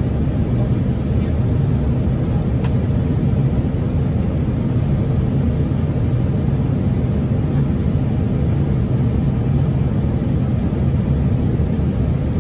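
Steady low rumble of airflow and systems noise inside an Airbus A320 cockpit in flight, constant throughout with no events.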